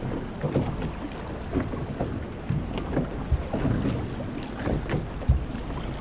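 Choppy water slapping and lapping against the side of a small open fishing boat in irregular low knocks and splashes, with wind buffeting the microphone.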